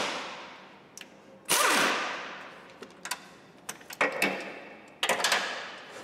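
Pneumatic impact wrench hammering in short bursts, about four, each with a fading tail, as it works a nut on the gearbox mount.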